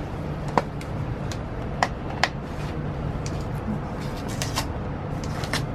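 Paper wrapping and tape being peeled and torn off a small box: scattered sharp crackles and snaps, over a steady low background hum.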